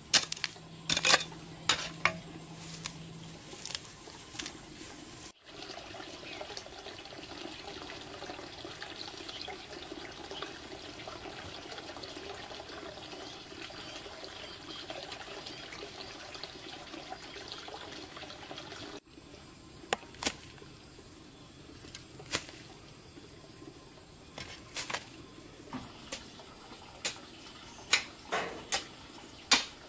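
Sharp clicks and knocks, then water running steadily for about fourteen seconds, starting and stopping abruptly. More scattered knocks and clatter follow.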